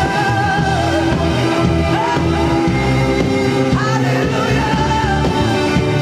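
Live worship band playing a rock-style song: a singer's voice over drum kit, electric guitar and keyboards, loud and steady throughout.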